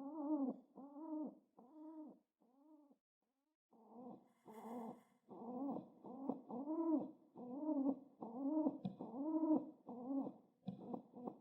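Domestic pet pigeon cooing: a run of short, soft notes, each rising and falling in pitch, with a pause about three seconds in before the cooing resumes. A couple of faint clicks come near the end.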